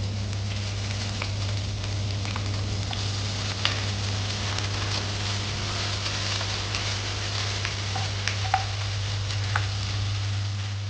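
Food sizzling in hot oil in a pan, a steady hiss with scattered pops and crackles, over a steady low hum.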